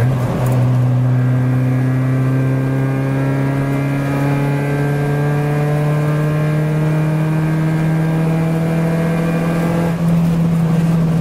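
Hyundai Tiburon's loud exhaust droning inside the cabin at highway speed, the engine note climbing slowly in pitch as the car accelerates. The note changes about ten seconds in as some of the higher tones drop away. The drone comes from an exhaust so loud it is being taken to be welded.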